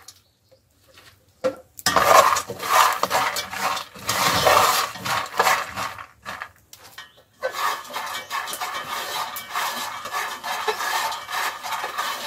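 Raw peanuts rattling and scraping in a dry metal pot as they are stirred with wooden chopsticks, dry-roasting over a wood fire. The stirring starts about two seconds in, stops briefly a little past halfway, then goes on irregularly.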